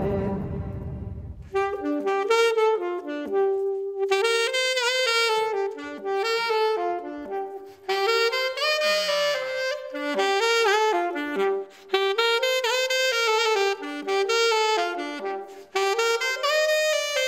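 A dance track with a beat fades out, then a solo alto saxophone plays an unaccompanied melody. It mixes short and held notes, some held notes waver in pitch, and there are brief pauses between phrases.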